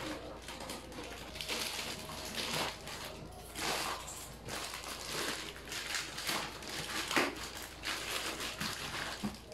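Plastic film and a cardboard box being cut, pulled off and crumpled, rustling and crinkling in repeated swishes.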